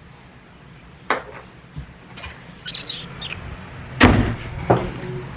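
A few sharp knocks and clatters of objects being handled, the loudest about four seconds in, with a brief high chirp or squeak near the middle.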